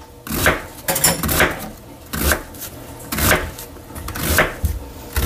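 Kitchen knife chopping an onion on a cutting board: a string of uneven knocks, roughly one a second, some in quick pairs.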